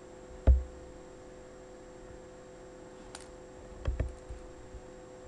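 A thump about half a second in, then a faint click and a short cluster of knocks and clicks around four seconds in: computer and desk handling noise. A steady electrical hum runs underneath.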